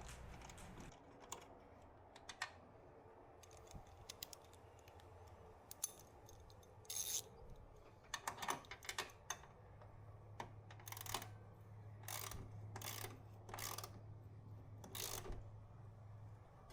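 Ratchet with a 13mm socket clicking in irregular bursts as a reused bolt is run in and snugged up by hand, faint at first and busier in the second half.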